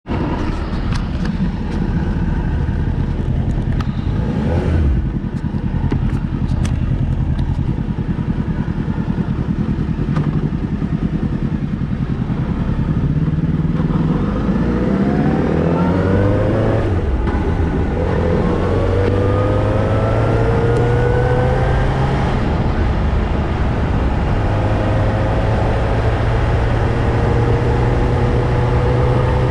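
Motorcycle engine running low and steady, with a few sharp knocks around five seconds in. About halfway through it pulls away, rising in pitch through a couple of gear changes, then settles into a steady cruise.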